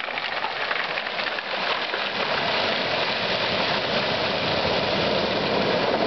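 Atlantic surf breaking and washing up over a cobble beach: a steady rushing hiss of water over stones that grows a little louder toward the end.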